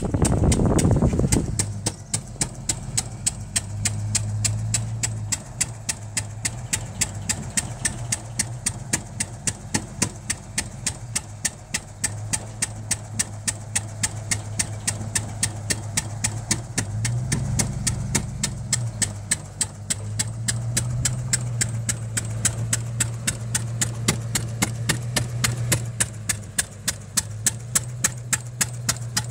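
Arrow C-96 single-cylinder gas engine running a National 160 oil-well pumping unit, firing with a quick, even beat of exhaust pops over a low hum. A louder rumble sits in the first second or so.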